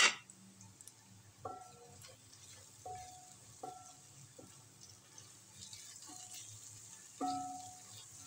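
A ladle stirring onions and ground spices frying in ghee in an aluminium pot. It knocks against the pot every second or so, each knock ringing briefly, over a faint sizzle. A sharp knock comes at the very start.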